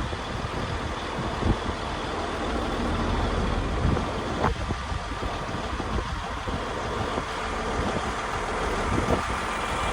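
A crane's engine running steadily at a low hum, with a few short knocks, one about a second and a half in, one near the middle and one near the end.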